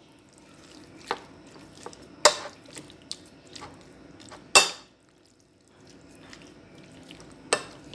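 Spoon clinking and scraping against a plate while mixing seasoned raw chicken pieces: four sharp clinks, the loudest a little past halfway, with softer wet stirring between.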